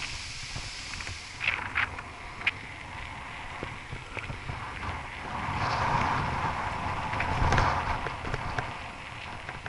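Riding a bicycle over rough, patched asphalt: wind rushing over the microphone and tyre noise, with a few sharp knocks from bumps about two seconds in. The wind rush swells louder for a few seconds past the middle.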